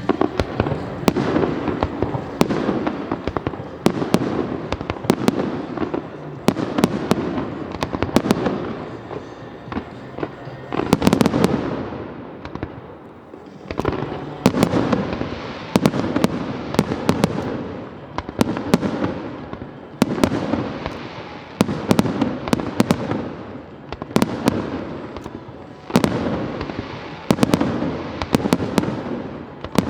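Fireworks display: aerial shells bursting in quick succession, one every second or two, each bang fading out, with many sharp crackles in between.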